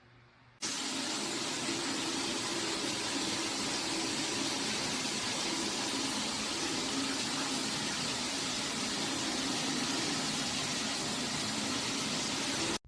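Water spraying steadily from a shower head: an even hiss that starts suddenly about half a second in and stops abruptly near the end.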